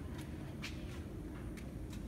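Steady low machine hum with a few light clicks, from a CNC wood lathe standing with a square wooden blank mounted, not yet cutting.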